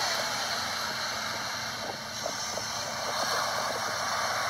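Ocean surf breaking and washing up the beach: a steady hiss of waves.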